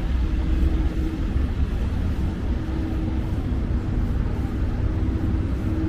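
Steady low rumble of city background noise, with a faint steady hum that comes and goes.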